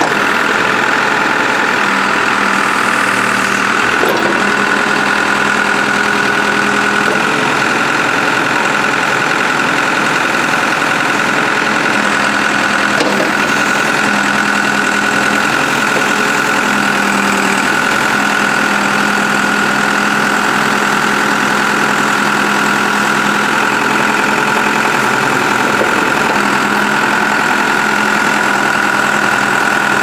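New Holland LB110 backhoe loader's diesel engine idling steadily, with a constant high whine running over it.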